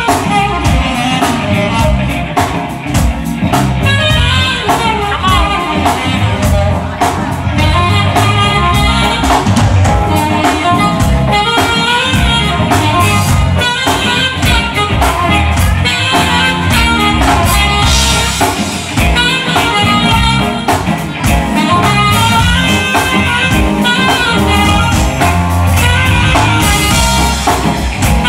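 Live smooth jazz band: a saxophone plays the lead melody over electric guitar, keyboard and drum kit.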